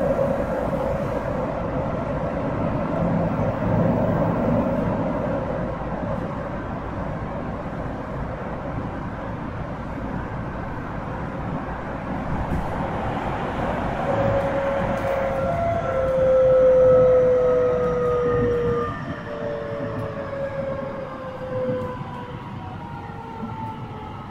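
Tsukuba Express TX-1000 series electric train running, with rumbling wheel and rail noise. From about halfway in, the traction motors give a whine of several tones that slides steadily down in pitch as the train slows.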